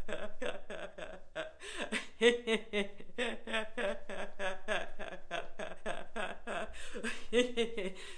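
A woman laughing on purpose, a laughter-yoga laugh, in a continuous run of quick 'ha-ha' pulses at about four or five a second.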